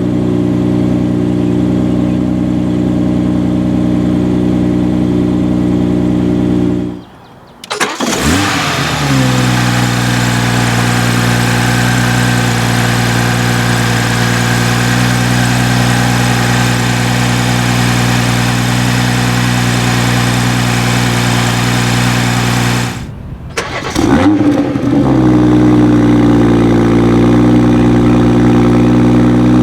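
2018 BMW X3 M40i's turbocharged 3.0-litre inline-six idling, then shut off and restarted at normal operating temperature, about eight seconds in and again about twenty-four seconds in. Each start flares briefly and settles quickly back to a steady idle.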